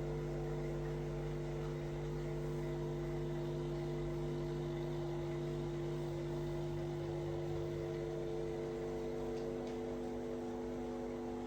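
Steady machine hum made of several held tones. Near the end the lowest tone drops out and a slightly higher one comes up.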